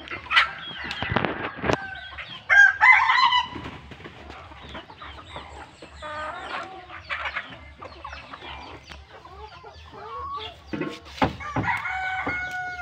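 Free-ranging chickens clucking throughout, with a rooster crowing: loud calls about two and a half seconds in, and one long, drawn-out crow near the end.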